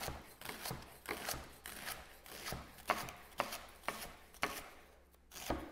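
Kitchen knife slicing endive into rounds on a wooden cutting board: a crisp cut through the leaves and a knock on the board, repeated about two to three times a second, with a short pause near the end.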